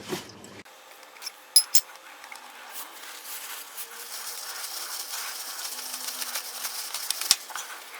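An oil filter being unscrewed from the 2.4 L four-cylinder engine: a few light metallic clicks about a second and a half in, then a steady trickle of oil pattering into a catch pan that builds up.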